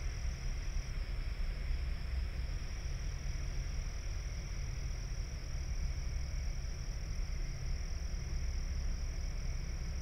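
Steady chorus of night insects, an unbroken high trill with no pauses, over a constant low rumble.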